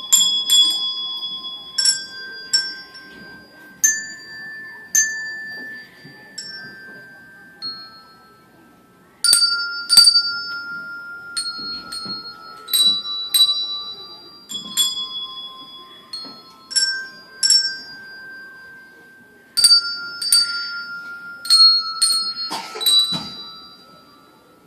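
A set of color-coded handbells rung by children one note at a time in a slow, uneven melody, each note ringing on after it is struck. The notes come about one or two a second, with a brief gap a little past the middle before the tune carries on.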